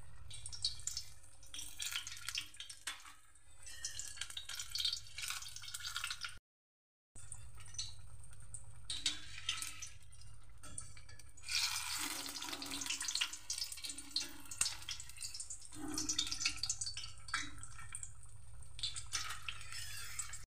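A batter-coated paneer pakoda deep-frying in hot oil in a steel kadhai: a steady crackling sizzle of bubbling oil. It grows louder for a few seconds about halfway through, and breaks off completely for a moment about six seconds in.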